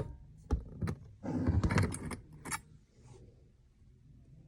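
Metal hook prostheses handling a leatherworking awl and its thread: a couple of sharp clicks, a jangling rattle lasting under a second, then one more click.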